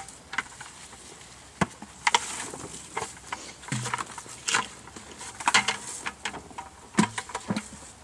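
Irregular rustling and crackling of grape clusters being handled in a plastic harvest bin, with a few sharper clicks.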